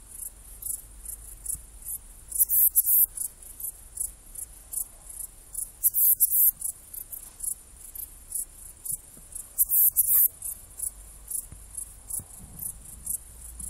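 Saddle-backed bush cricket (Ephippiger ephippiger) stridulating: short, very high-pitched chirps in quick runs, with a louder cluster about every three to four seconds.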